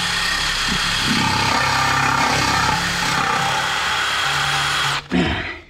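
Cordless drill running at speed with a cleaning attachment in the hub's ball joint bore, scouring it so the new ball joint will sit flat. It stops abruptly about five seconds in, with a brief clatter just after.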